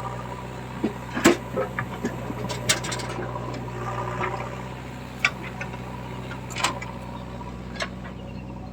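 Diesel engine running steadily at a low idle, with several sharp knocks or clanks scattered through it.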